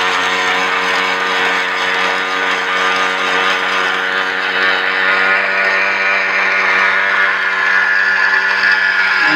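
Rice combine harvester's engine and machinery running steadily at constant speed, a steady mechanical hum with a whine above it that grows slightly stronger in the second half.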